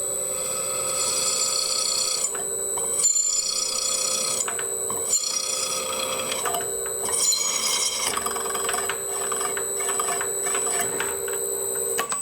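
Drill press at 600 RPM driving a high-speed steel twist drill into 304 stainless steel plate lubricated with drilling fluid. A steady hum runs under a high-pitched squeal from the cut that comes and goes in spells of a second or two.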